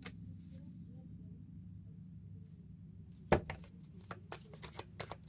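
Quiet handling noise: a single sharp knock about three seconds in, followed by a quick run of light clicks and taps, over a steady low hum.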